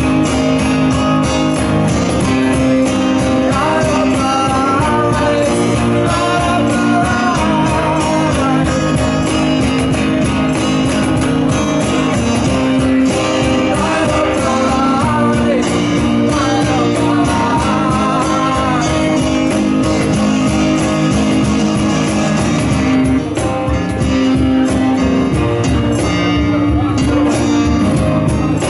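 Live acoustic band playing a rock-blues tune: two acoustic guitars over a cajon beat, with a wavering melody line on top.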